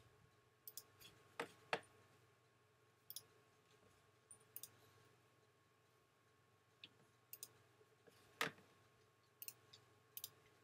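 Sparse computer mouse clicks, about ten short separate clicks with two louder ones, over a faint steady hum.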